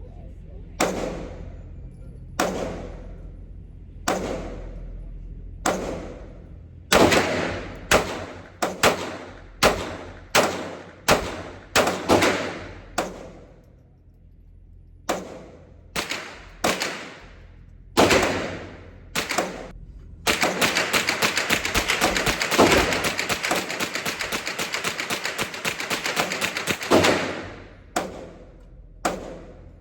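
Gunfire at a shooting range, each shot trailing off in echo. Single shots come about every second and a half, then a quicker string, then about two-thirds of the way through a long, rapid burst of fire runs for about six seconds before single shots resume.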